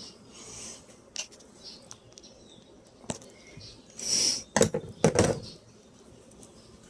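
Screwdriver and pliers clicking and scraping on metal while prying the staples out of a pickup's door window scraper seal: a few scattered clicks, a short scrape about four seconds in, then a quick run of knocks.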